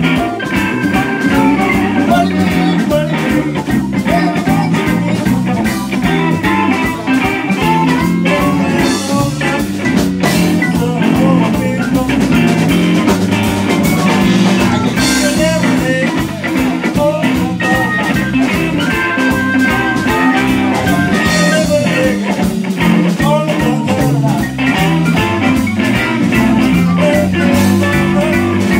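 Live blues-rock band playing: a Stratocaster-style electric guitar over electric bass and a drum kit, with saxophone and keyboard, to a steady beat.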